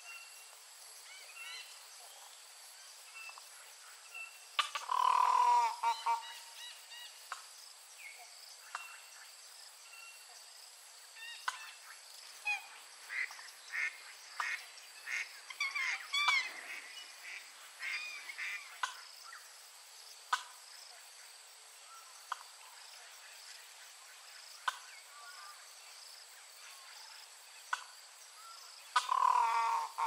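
Aviary birds calling: a loud, drawn-out call about five seconds in and another near the end, with a string of short calls in between.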